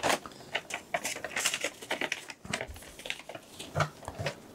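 Irregular light clicks and taps of hands handling and touching an opened laptop, at a quiet level.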